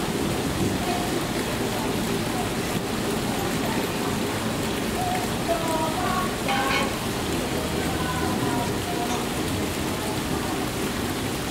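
Steady, rain-like splashing and rushing of water in a deep canal lock, with a low rumble underneath. Faint voices come through now and then.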